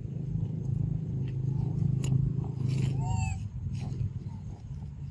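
A short, high, rising-and-falling squeak, twice in quick succession about three seconds in, from a baby macaque. It sits over a steady low rumble.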